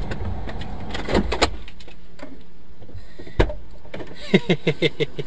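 Car idling, heard from inside the cabin as a steady low rumble, with a few sharp clicks and, near the end, a quick run of about seven short pitched sounds.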